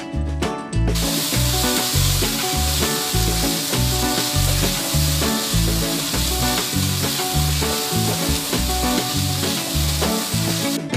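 Yellow noodles sizzling in hot oil in a wok while being stir-fried and tossed with a spatula. The sizzle starts abruptly about a second in and cuts off sharply near the end, over background music with a steady beat.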